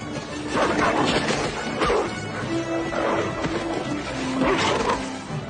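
Film score with a dog and wolves growling at each other as they fight, their bursts of growls coming every second or so over held music notes.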